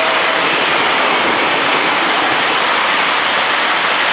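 Model train passing close by, its wheels on the track making a steady rushing noise.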